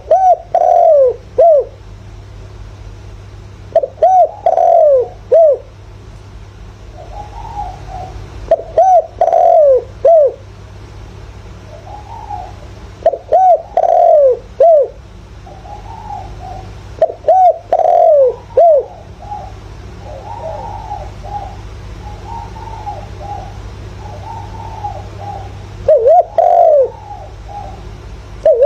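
Spotted dove cooing its call: loud phrases of three or four coos that repeat every four to five seconds, with softer, quieter coos between them over a steady low hum. It is a male's decoy call in the favoured 'thổ' voice, used to rouse caged wild-caught doves into calling.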